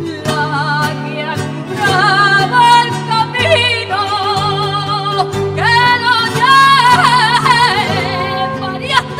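Flamenco guajira: a woman singing a long, wavering melismatic line with wide vibrato over guitar accompaniment and sustained low notes.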